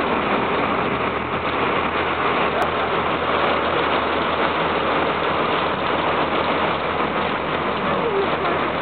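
Heavy rain falling steadily, with a passenger water bus's engine running underneath as the boat moves along.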